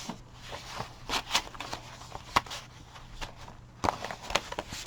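Paper rustling and soft taps as the pages of a handmade junk journal and a sheet of folded stationery paper are handled, in short irregular bursts.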